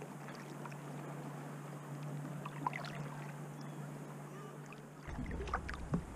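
Kayak paddling on calm water: paddle blades dipping and water splashing and dripping in small clusters, about midway and again near the end.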